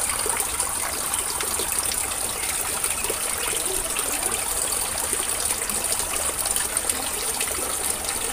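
Many thin streams of water falling from perforated PVC pipes into a fish pond, a steady trickling and splashing with small ticks of drops throughout.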